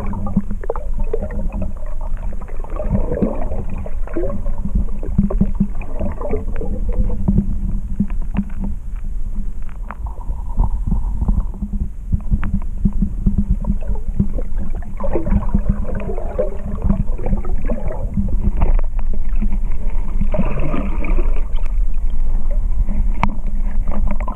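Muffled underwater sound of a camera moving through water: a steady low rumble with gurgling and many small clicks and knocks.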